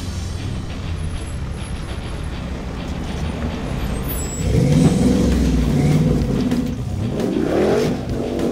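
Jeep Wrangler's engine revving as it climbs a rock ledge out of a mud hole: a low rumble, then the engine pitch rises about four and a half seconds in and again near the end.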